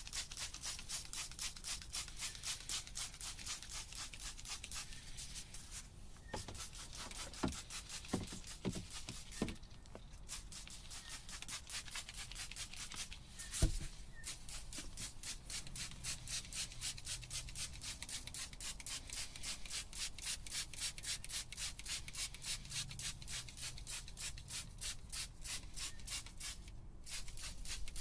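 Hand trigger-spray bottle pumped over and over, spraying all-purpose cleaner in quick hissing squirts, about three or four a second, with a few short pauses. A single sharp knock about 14 seconds in.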